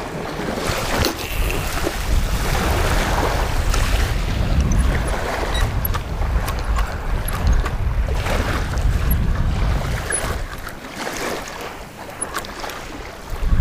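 Wind buffeting the camera microphone in an uneven low rumble, over a faint wash of small waves at the water's edge, with a few small clicks.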